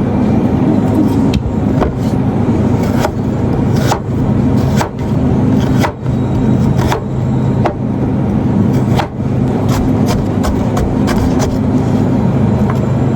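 A steady low hum like a running engine, with irregular sharp knocks and clicks over it.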